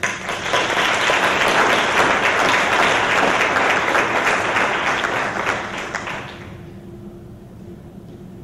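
Audience applauding: dense clapping that starts at once, holds steady, and dies away about six seconds in.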